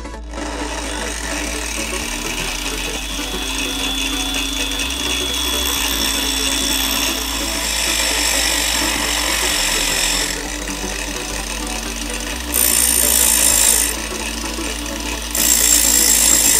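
Stand-mounted angle grinder running with a steady motor whine while a flat steel bar is ground against its abrasive wheel. The grinding grows louder about eight seconds in, and two loud stretches of grinding hiss, each just over a second long, come near the end.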